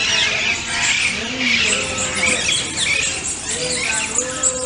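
A busy chorus of small birds chirping, many short overlapping calls.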